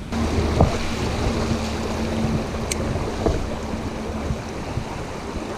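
Steady rush of a flowing creek with wind on the microphone, broken by a few sharp clicks.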